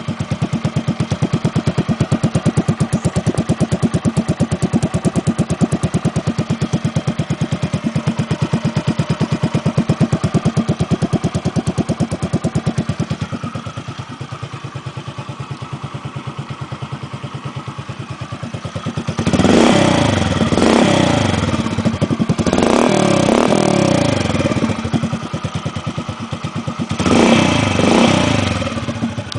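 Honda Pop 100's single-cylinder four-stroke engine idling through an aluminium RS aftermarket exhaust, a loud, even beat that drops a little in level partway through. It is then revved three times, each rev rising and falling back to idle.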